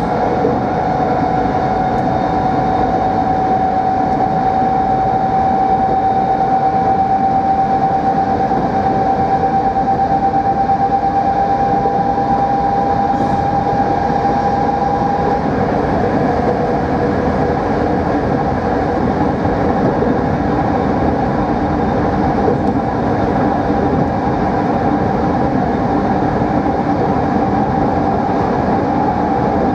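Dutch Mat'64 (Plan V) electric multiple unit running, with a steady rumble under a motor whine that creeps up slightly in pitch for about the first half, then fades into the rumble.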